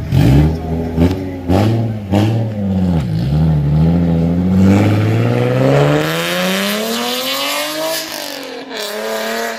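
Nissan 370Z's V6 engine revving in several short blips as the car pulls out, then accelerating away with a long rising pitch and an upshift near the end.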